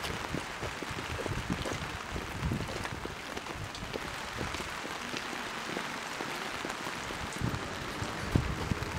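Steady rain falling on umbrellas and wet pavement: an even hiss with scattered drop ticks, occasional low thumps, and one sharper knock near the end.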